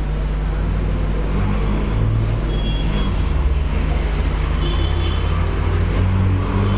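Steady background noise with a low electrical hum running under it, typical of mains hum in a microphone and amplifier system.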